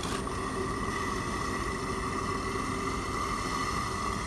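Steady mechanical running of a supercritical CO2 extraction machine, a constant hum with a steady whine on top. A short click right at the start.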